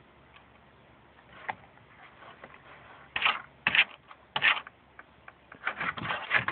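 A dog chewing and mouthing a grasshopper: short, clicky crunching sounds, first a few spaced ones about three seconds in, then a quicker cluster near the end.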